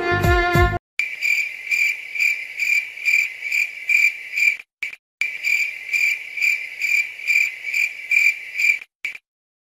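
Cricket chirping sound effect, the comedy 'crickets' gag: a steady high chirp pulsing about twice a second. It cuts in sharply right after a bit of music stops, drops out abruptly about halfway through, resumes, and cuts off again near the end.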